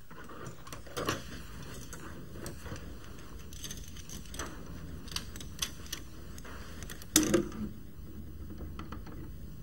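Quiet room tone with a few faint clicks and taps, then a short cluster of louder clicks about seven seconds in as a steel butt hinge is laid on the edge of a pine door.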